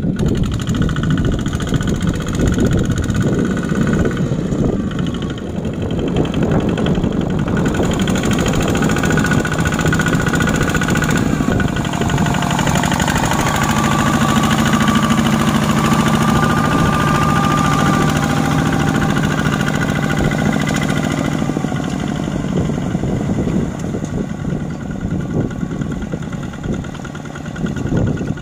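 Single-cylinder diesel engine of a two-wheel walking tractor chugging steadily under load as it pulls a loaded rice trailer through deep mud.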